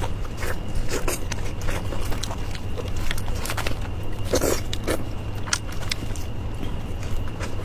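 Someone biting and chewing clay-oven roasted chicken: irregular crackly clicks of eating, over a steady low hum.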